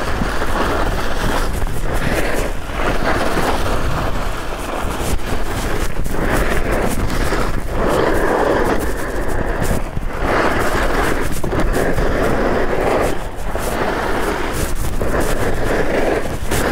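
Skis scraping and carving across firm, icy snow at speed, the hiss swelling and fading with each turn, over steady wind rumble on the microphone.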